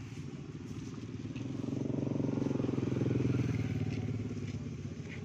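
A small engine runs past close by with a fast, even pulse, growing louder to its peak about three seconds in and then fading.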